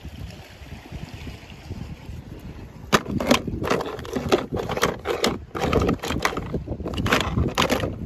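Water sloshing, then a quick run of short splashes from about three seconds in.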